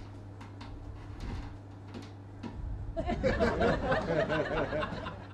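A person chuckling, starting about three seconds in, after a quieter stretch with a few faint clicks.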